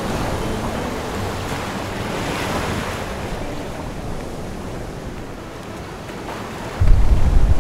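Water rushing and splashing along the hull of a sailboat under sail, with wind. About seven seconds in, wind starts buffeting the microphone with a sudden loud low rumble.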